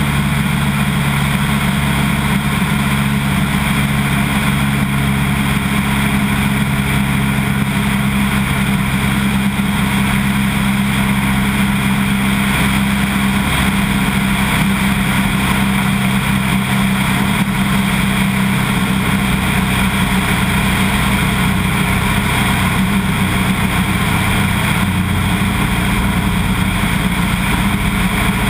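Floatplane's piston engine and propeller droning steadily in cruise flight, heard from outside the aircraft with wind rushing over the microphone.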